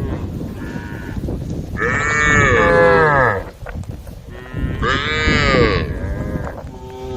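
Cows mooing: two loud, long moos, one about two seconds in and one about five seconds in, each rising then falling in pitch, with fainter moos from other cows around them.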